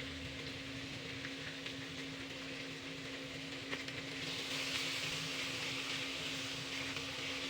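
Food sizzling in hot oil in a pan, a steady hiss that grows louder about four seconds in, over a constant low hum.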